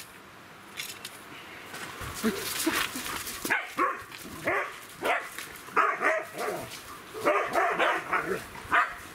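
Several dogs barking and yipping during rough play, with many short barks in quick succession from about three and a half seconds in.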